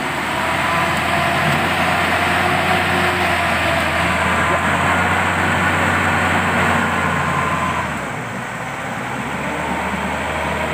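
Engine of an old 4x4 pickup running hard at high revs as it struggles up a slippery dirt slope. The revs ease off about eight seconds in and then build again.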